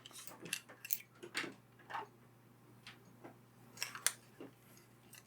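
Irregular light clicks and taps of fountain pens and their packaging being handled, several in the first two seconds and a couple more about four seconds in.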